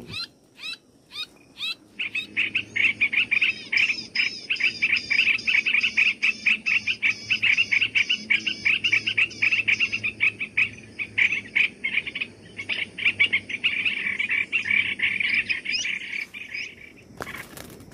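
Bird calls: a few scattered notes, then a long, regular run of quick chattering notes, about four a second, that cuts off suddenly near the end.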